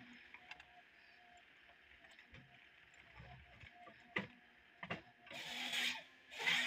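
John Deere 1070G harvester working at a distance over a steady machine hum: two sharp knocks from the harvester head, then its chain saw cuts through a log in two short bursts near the end.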